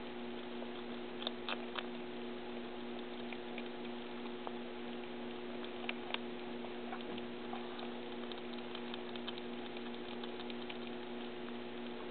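Baby squirrels gnawing and cracking nut shells: scattered small clicks and crunches, with a few sharper cracks about a second and a half in and around six seconds, over a steady hum.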